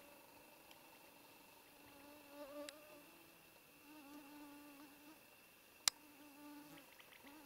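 A flying insect buzzing close by, its low hum coming and going in several spells. A single sharp click about six seconds in.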